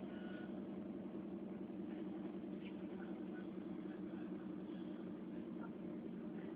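Steady low rumble of a passenger train running, with a few faint ticks and rattles over it.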